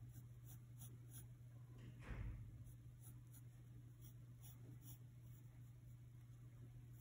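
Faint pencil strokes scratching on paper, a quick run of short strokes, with a brief soft thump about two seconds in, over a steady low hum.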